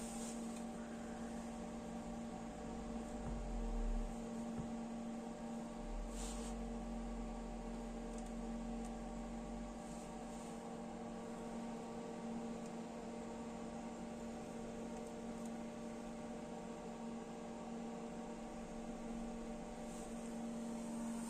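Steady electrical hum from a Hewlett Packard 6624A bench DC power supply delivering about 0.73 A at 22 V: one strong low tone with many fainter tones above it and a light hiss. A soft bump about four seconds in and a brief click about six seconds in.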